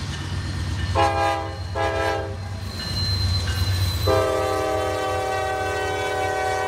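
Locomotive horn sounding two short blasts, then a long blast held from about four seconds in, over a steady low rumble.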